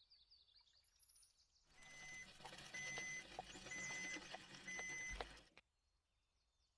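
Small wooden cart rolling in, its wheel giving a steady squeal four times, about once a second, over a low rumble and light hoofsteps, then stopping. Faint chirping is heard before the cart comes in.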